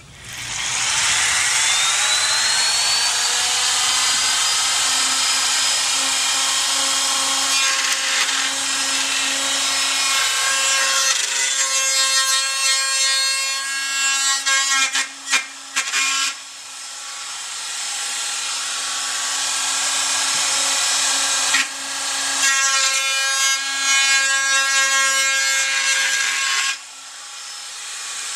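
Wood router spinning up with a rising whine, then cutting into a pine workpiece in two long stretches, the rough hiss of the bit in the wood over the steady motor whine, with a few brief breaks around the middle. Near the end the motor whine begins to fall as it winds down.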